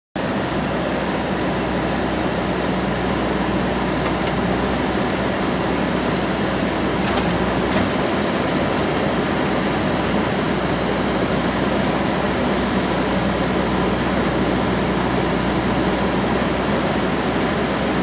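Diesel engine of a JCB 3DX Super backhoe loader running steadily under load while its backhoe arm digs a trench.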